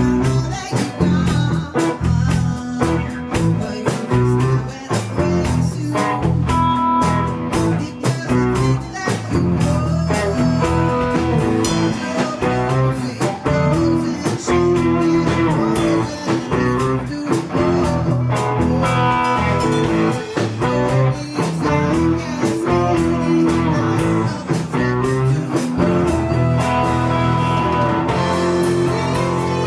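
Live rock band playing a song: electric guitars over bass and a drum kit, with a steady beat.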